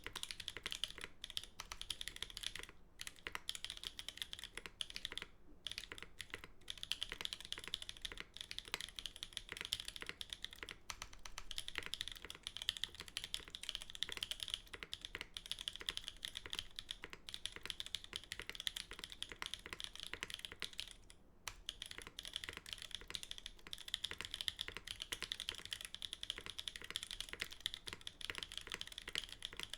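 Custom TGR Jane v2 CE mechanical keyboard typed on quickly and steadily: Holy Panda tactile switches clacking on a carbon fiber plate in a top-mount case, under GMK keycaps. The typing stops for a moment about 3, 5 and 21 seconds in.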